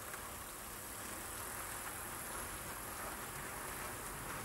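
00 gauge model train running: a steady whirring of the coaches' wheels rolling along the track.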